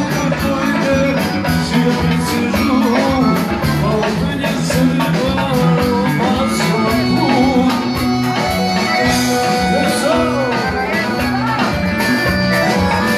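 Live Balkan folk band with a singer, amplified loudly through PA speakers, a steady beat under a sung melody.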